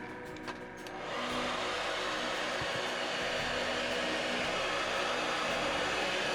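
A steady rush of blowing air switches on about a second in and holds steady.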